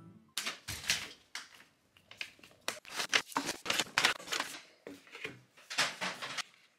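Paper takeaway delivery bag rustling and crackling in irregular bursts as food containers are unpacked from it.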